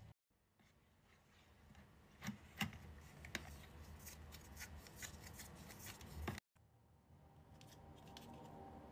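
Wooden spatula stirring melted red hard wax in a wax warmer's pot: soft sticky scraping with scattered sharp clicks. Near the end, a smoother soft sound as the wax is spread onto an arm.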